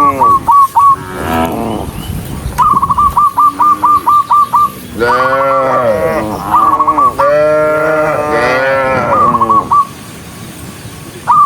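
Cattle mooing: several long, drawn-out moos, some overlapping, with quick runs of short high chirps in between.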